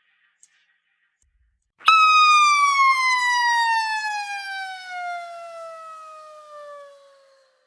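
A cartoon falling-whistle sound effect: one long whistling tone that starts abruptly about two seconds in, then glides slowly down in pitch for more than five seconds as it fades away.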